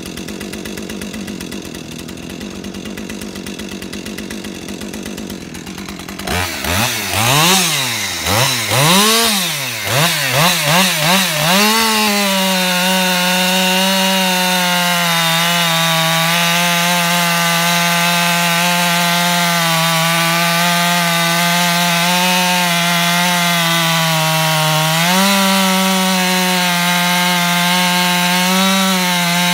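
Ported Husqvarna 550 XP two-stroke chainsaw on a 24-inch bar with 3/8 full-chisel chain. It runs at idle for about six seconds, is revved up and down several times, then holds a steady high wide-open note while cutting into a large stump, its pitch stepping up briefly near the end.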